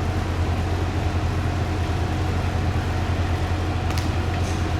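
Kanto Railway Joso Line diesel railcar idling: a steady low engine hum with a faint higher tone above it. A couple of faint clicks come about four seconds in.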